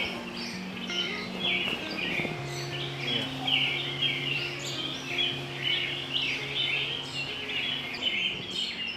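Many songbirds chirping and singing together in a busy dawn chorus, over soft sustained music notes that shift to a new chord about two seconds in.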